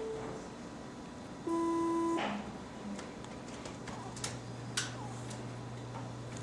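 A single electronic beep about a second and a half in, lasting under a second, then a low steady hum from about three seconds on, with a few faint clicks.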